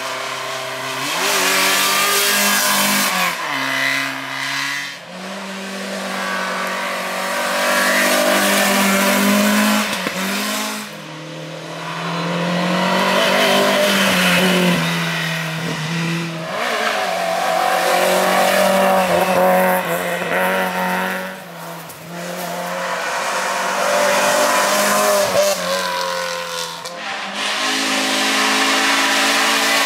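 Race car engines revving hard up a hill-climb course, the pitch rising and stepping at gear changes. It comes in several loud runs of a few seconds each, with brief dips between them.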